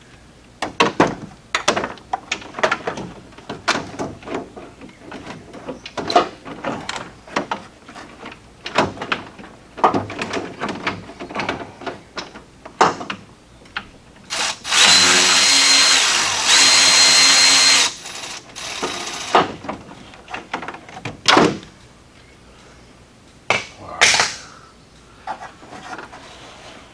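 Metal tools clicking and knocking, then a cordless drill-driver runs for about three seconds with a brief dip partway, spinning out an 8 mm radiator mounting bolt. A few loud knocks follow.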